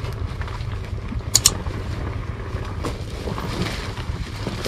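Underbone motorcycle on a rough dirt trail: steady low engine and wind rumble, with a sharp double click about a second and a half in.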